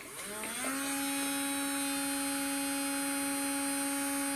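Electric nail drill handpiece motor, set to 25,000 rpm, spinning up with a rising whine over the first half second or so, then running at a steady pitch.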